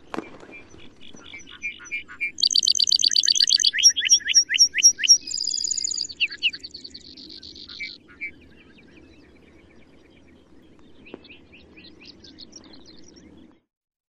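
Male lark bunting singing one song of rapid trilled runs, repeated clear notes and a buzzy note, loudest about two to five seconds in, followed by a few faint notes near the end over a low steady background rumble.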